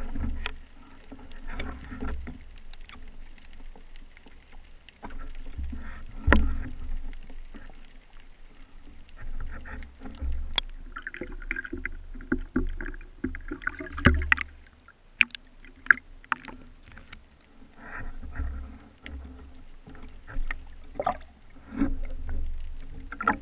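Water moving against an action camera mounted on a speargun, as the diver swims underwater and at the surface. Repeated low surges and rushing come from the water, with scattered sharp clicks and knocks from the gear, several of them close together about two-thirds of the way through.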